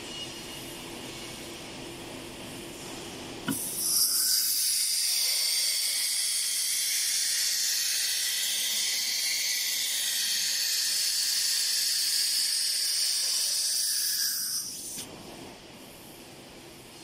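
CNC router's automatic tool changer at work: a sharp click, then a loud steady hiss of compressed air for about eleven seconds that stops abruptly, over the machine's low hum.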